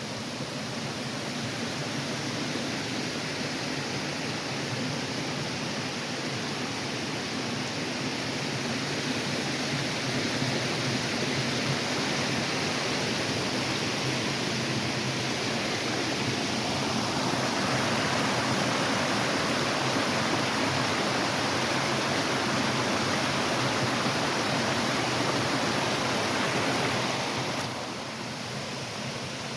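Steady rush of water from a small mountain waterfall stream. It grows louder and fuller about two-thirds of the way through, then drops off abruptly near the end.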